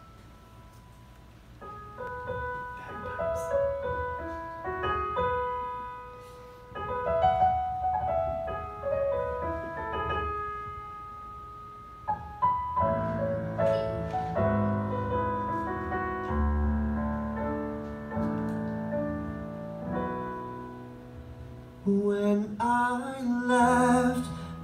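Roland digital piano playing a slow introduction: single notes and broken chords, filling out with sustained chords and a bass line about halfway through. A male voice starts singing over the piano near the end.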